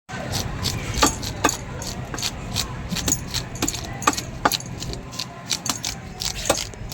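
Knife striking fish and the cutting block during fish cleaning and cutting: sharp, irregular chops and clinks, about three a second, over a low background murmur.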